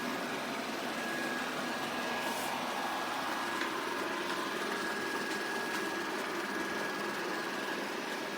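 Shark robot vacuum running: a steady motor whir with a faint high whine held throughout.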